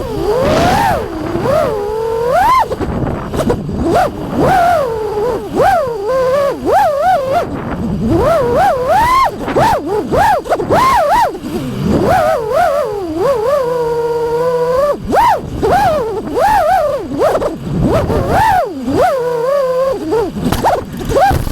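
FPV quadcopter's brushless motors whining, the pitch swooping rapidly up and down with throttle punches and turns during freestyle flight.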